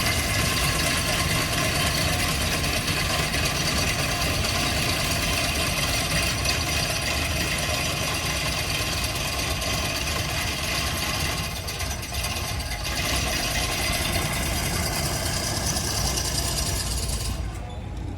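East Broad Top steam locomotive No. 16 up close: a steady hiss of steam over mechanical clanking and pounding. The hiss thins out near the end.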